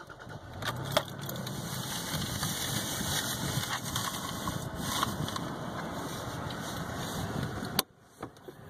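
Keys jangle at the ignition, then a Toyota Tacoma pickup's engine starts about a second in and idles steadily. The sound cuts off suddenly near the end.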